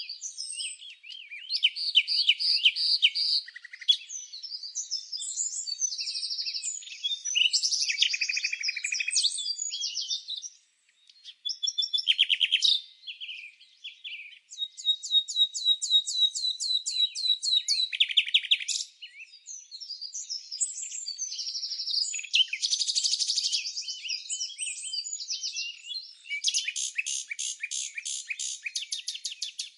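Songbirds singing and chirping: a steady run of varied high-pitched phrases and fast rattling trills, with brief pauses, and nothing low-pitched beneath them.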